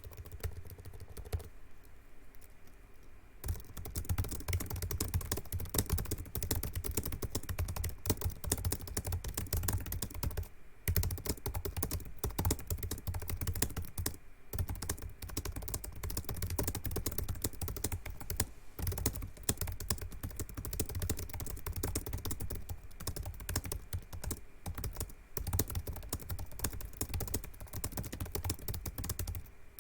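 Fast typing on a Razer laptop's built-in mechanical keyboard: a dense, rapid stream of key clicks that starts about three and a half seconds in and runs on with a few brief pauses.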